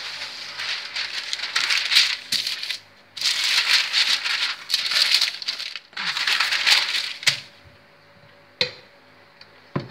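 A sheet of baking paper rustling and crinkling as it is handled and spread flat, in three stretches, then a couple of light knocks near the end.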